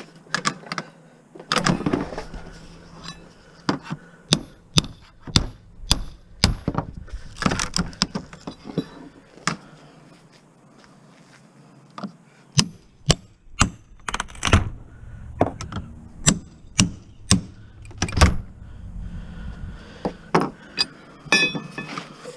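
Hammer blows and a pry bar striking and levering at the cabinet of a big-screen projection TV to break it apart. The knocks and cracks come in quick runs, with a quieter pause near the middle.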